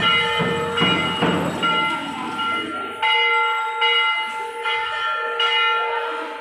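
A temple bell being struck again and again, each strike ringing on over the last; from about three seconds in it is struck roughly once every 0.8 seconds.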